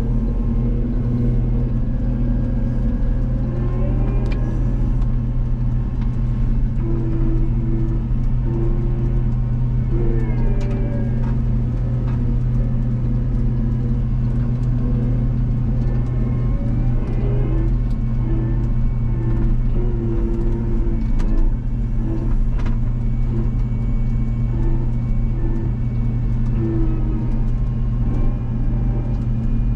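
Diesel engine of a harvest machine running steadily as a constant low drone, with short higher-pitched tones coming and going above it.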